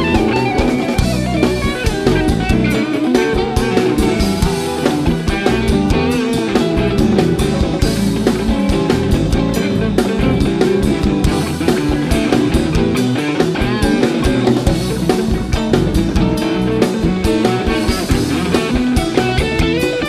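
Live rock band playing an instrumental passage: an electric guitar lead with bending notes over drum kit and bass.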